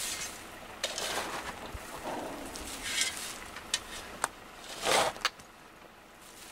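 Metal spade digging into loose shale and stones: a series of gritty scrapes and sharp clicks of the blade striking stone, the loudest a longer scrape about five seconds in.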